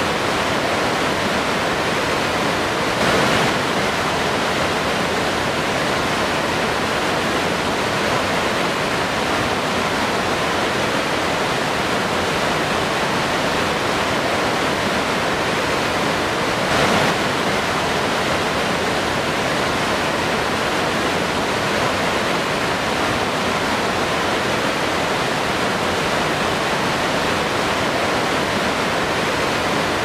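Large waterfall crashing steadily into its plunge pool, a dense unbroken rushing of water, swelling slightly about three seconds in and again about seventeen seconds in.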